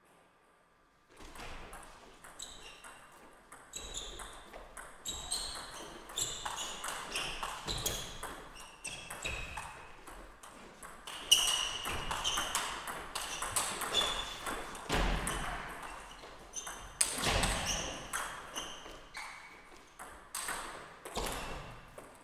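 Table tennis ball being struck back and forth in a long rally: a rapid run of sharp pings off bats and table, starting about a second in, with one especially loud hit about halfway through.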